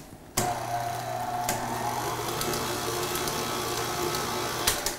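KitchenAid Artisan stand mixer running at a steady speed with its whisk attachment, briefly beating cheesecake batter. The motor switches on with a click about half a second in and stops near the end.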